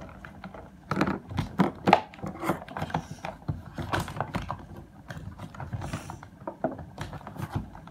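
Toy packaging being handled and opened by hand: an irregular run of sharp clicks, taps and short scrapes of cardboard and plastic.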